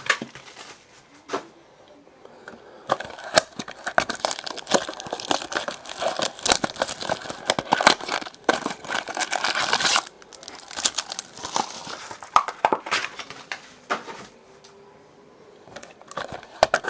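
Trading card pack wrappers being handled and torn open, a dense run of sharp crinkling and tearing with two quieter pauses, one near the start and one near the end.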